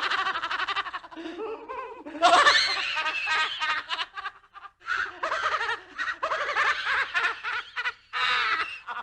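Spooky Halloween laugh sound effect: a person laughing in high-pitched, pulsing bouts with short breaks, ending near the end.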